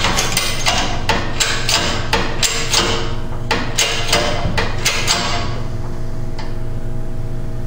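Hydraulic shop press being pumped by hand, its bottle-jack handle and mechanism clicking and knocking about three times a second as a seal sleeve is pressed onto a knurled pump shaft; the clicking stops about five and a half seconds in, leaving a steady low hum.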